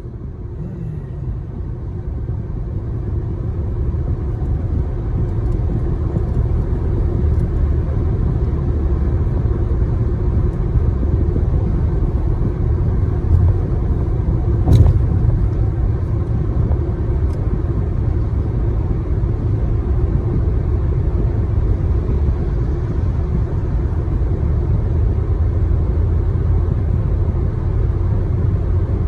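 Steady low rumble that builds over the first few seconds and then holds, with one sharp click about halfway through.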